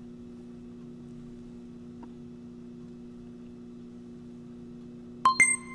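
Countdown timer's end-of-count electronic beep, a short sharp ringing tone, sounding near the end over a steady low hum.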